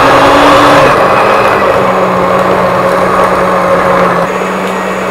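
Electric stand mixer's motor running steadily, its beaters churning stiff cookie dough in the bowl; the whine drops slightly in pitch about a second in.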